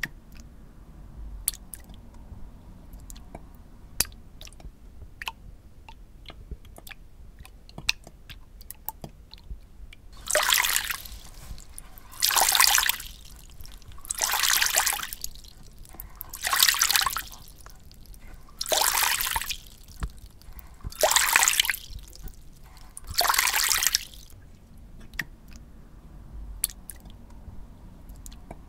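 Water dripping in scattered sharp ticks, with seven hissing rushes of water, each about a second long and spaced roughly two seconds apart, through the middle.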